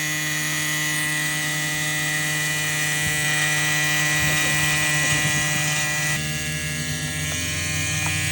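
Loud, steady electric-sounding buzz with many overtones, its tone shifting about six seconds in.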